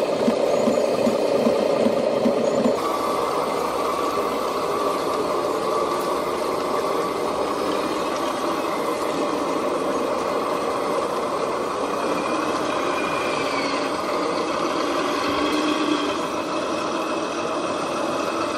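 Radio-controlled construction machines running. A pulsing, engine-like chug for the first few seconds, then a steadier motor whine with small shifts in pitch.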